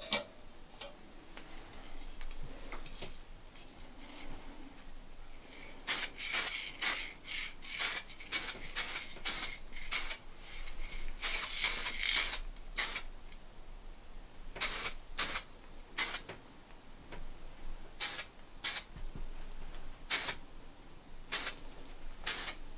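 Aerosol spray-paint can hissing in short bursts: a quick run of close-spaced squirts starting about six seconds in, then single squirts a second or two apart.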